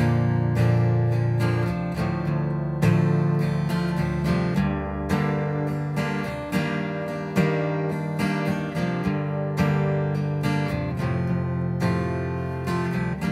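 Steel-string acoustic guitar, tuned down a whole step to DGCFAD, strummed through a slow chord progression with a chord change every second or so. The chords are A minor, G, F major 7, C over G and E minor.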